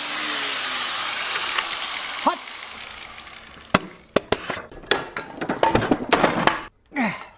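A handheld grinder's disc winds down after the cut, its whine falling and fading over a few seconds. Then comes a run of sharp clicks and knocks from metal parts of the lawn mower being handled.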